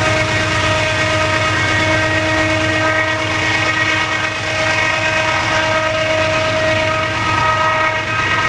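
Diesel-electric freight locomotive running as it moves a loaded coal train, a steady whine held over a low engine drone and the noise of the moving cars.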